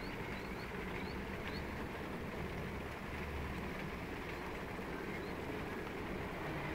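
Steady outdoor background noise with a low rumble. Short high chirps, like a small bird's, come several times in the first second and a half and once more later.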